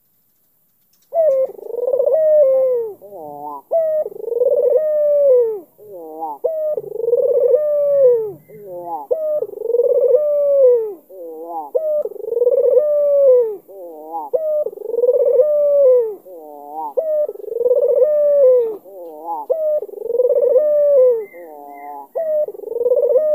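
Barbary dove (puter) cooing in repeated phrases, about one every two and a half seconds, starting about a second in. Each phrase is a long falling coo followed by a quick run of short wavering notes.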